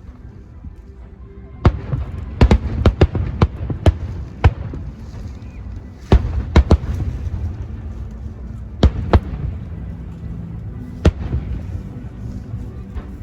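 Aerial fireworks bursting: a run of sharp bangs in quick clusters, about a dozen in all, over a low rolling rumble.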